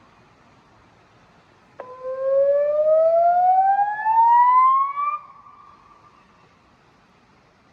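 River warning siren sounding through Bosch LBC-3406 horn speakers: a single electronic tone, about three seconds long, that starts with a click and climbs steadily in pitch, then cuts off and echoes away. It is one rise of a repeating warning signal for high river water.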